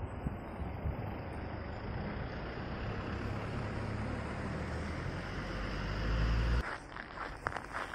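Road traffic with a vehicle engine rumble growing louder toward about six seconds in, then cut off abruptly. After that, a few light crunching steps in snow.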